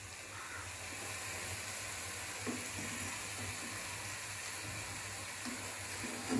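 Wooden spatula stirring and fluffing cooked rice in a nonstick pot, with a few soft knocks against the pot, over a steady faint hiss.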